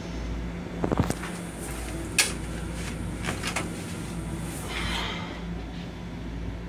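Steady low rumble of an M7 railcar running, with a few sharp clicks and knocks and a short rustle about five seconds in as toilet paper is handled and dropped into the toilet bowl.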